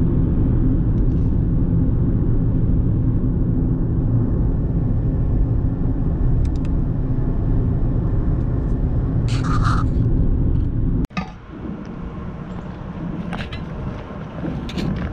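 Steady low road and engine rumble inside a car's cabin at highway speed. About eleven seconds in it cuts to a quieter outdoor sound with wind rumbling on the microphone and a few short crunches of footsteps on gravel.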